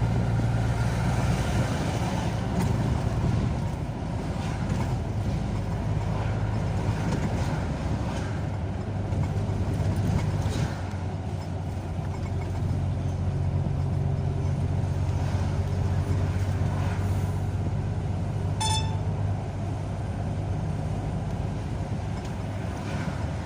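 Car driving along a road: steady engine and road noise with a low hum. A short high beep sounds once, late on.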